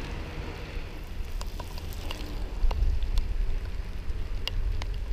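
Steady rain on a wet road, with scattered sharp ticks of drops, over a low steady rumble.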